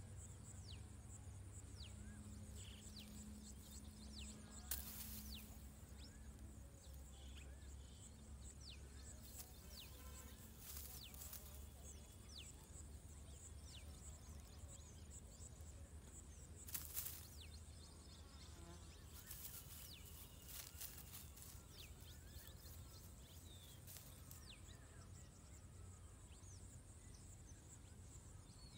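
Faint field ambience: a steady high insect drone with many short, quick chirps scattered throughout over a low rumble of wind. A few brief clicks stand out, the loudest about 5 s and 17 s in.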